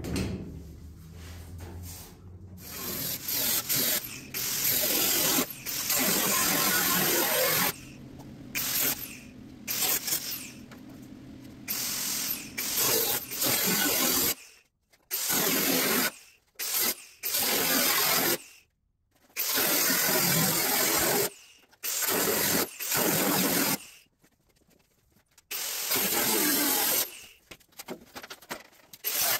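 A handheld power tool working on a steel roof panel, run in about eight bursts of one to three seconds with short pauses. The sound is loud and noisy, with no clear pitch.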